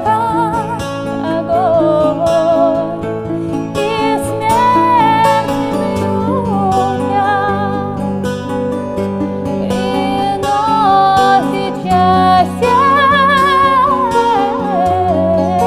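A woman singing a melody with wide vibrato over plucked bouzouki and acoustic guitar accompaniment.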